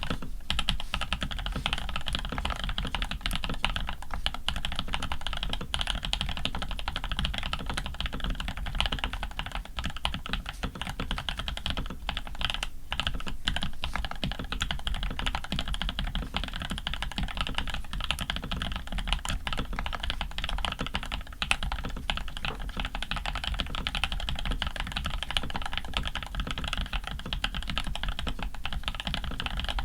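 Fast continuous typing on a custom Rama U80 mechanical keyboard fitted with lubed Creamsicles linear switches, an aluminium plate and PBT keycaps: a dense, steady stream of keystroke clacks, with a brief pause about thirteen seconds in.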